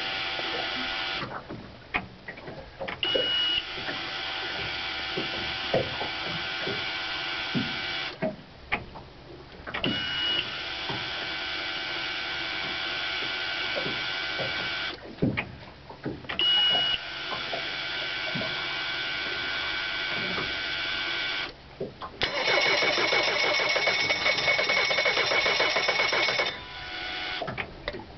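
Cold Mercury 90 hp four-stroke EFI outboard running, cutting out briefly four times and picking up again, with a short high beep as it comes back. It runs louder and rougher for a few seconds near the end.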